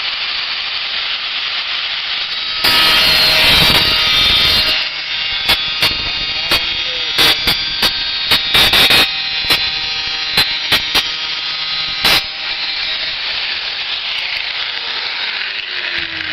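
Angle grinder on thin sheet steel: one grinding pass of about two seconds, then a string of short, sharp touches against the metal, over a steady hiss.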